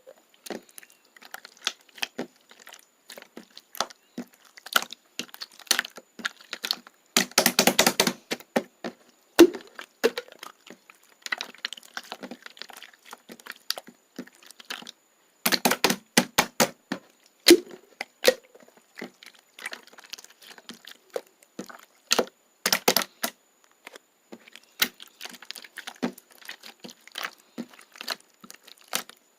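Slime being squeezed and worked by hand: crisp clicks and crackles throughout, with a few louder bursts of rapid clicking about a quarter, half and three-quarters of the way through.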